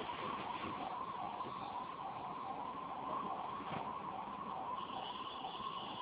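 A low-level warbling tone, rising and falling in pitch a few times a second, over a steady background hiss.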